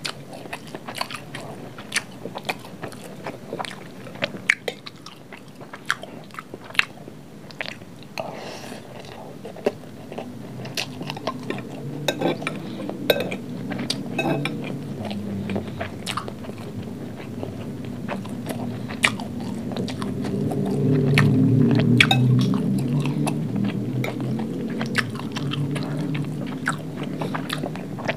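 Close-miked eating of fried rice: a metal spoon clicking and scraping on a glass plate, and wet chewing and crunching of mouthfuls. The chewing grows louder from about ten seconds in and is loudest a little past the middle.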